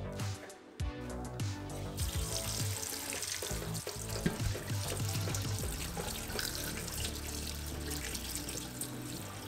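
Venison shanks splashed about in a water-filled stainless steel sink, then a cold kitchen tap running onto them from about two seconds in, the water hissing and splashing over the meat as it is rinsed.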